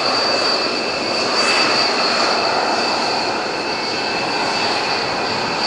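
Jet engines of a B-1B Lancer bomber running steadily as the aircraft rolls along the ground: a continuous rush of jet noise with a steady high whine above it.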